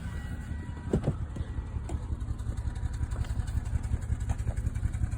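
Volvo S80 T6's 2.8-litre twin-turbo straight-six running rough with an uneven, pulsing beat: the engine is misfiring. A sharp clack about a second in.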